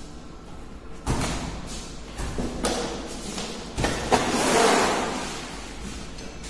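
Large vinyl floor tiles handled out of their cardboard box: a few sharp knocks and thumps, then a longer noise that swells and fades about four seconds in.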